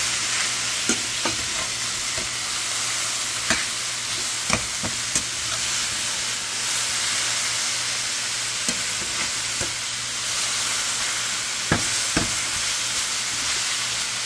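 Cabbage, broccoli, carrots and green beans stir-frying in a hot pan: a steady sizzle, with the spatula clicking and scraping against the pan now and then as they are tossed.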